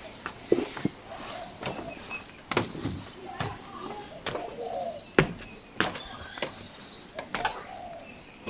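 Birds calling in a park, with a short high note repeated about twice a second, over footsteps on a path.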